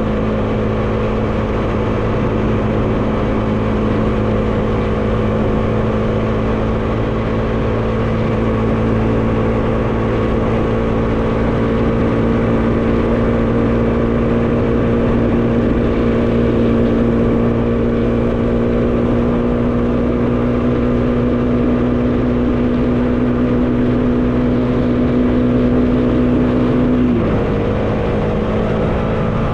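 Bajaj Dominar 400's single-cylinder engine running under way, its note climbing slowly, then dropping suddenly near the end at a gear change, with wind noise over it.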